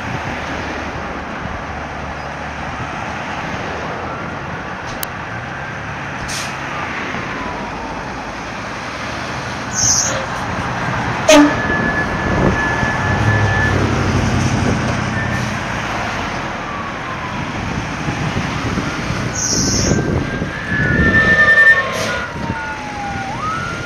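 Pierce fire engine's electronic siren sweeping up and down in pitch while its diesel engine runs and pulls away, with short air-brake hisses about ten seconds in and again near twenty seconds, and a sharp bang just after the first hiss.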